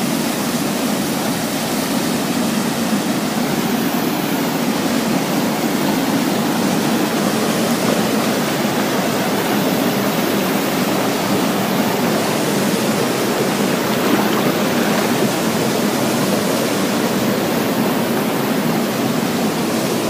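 Small waterfall and rocky stream rushing steadily.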